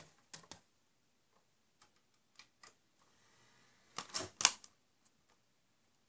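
Blu-ray player's disc tray being worked: a few light plastic clicks, a faint motor whir, then a quick cluster of sharp clicks and clunks about four seconds in as the tray shuts on the disc.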